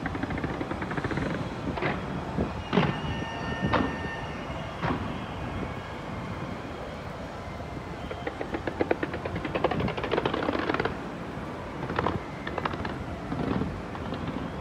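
Fireworks exploding: a string of sharp bangs over a continuous rumble, with a fast crackling run about eight seconds in that lasts about three seconds, then more bangs near the end.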